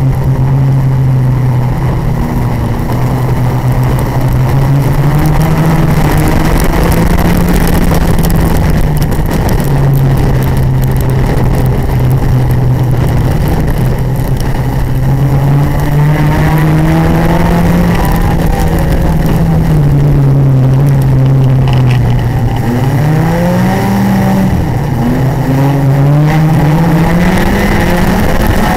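Race car's engine heard from inside the cabin, its note rising and falling as the driver accelerates and lifts off, with several quick rising revs in the second half, over a constant rattling rush of noise.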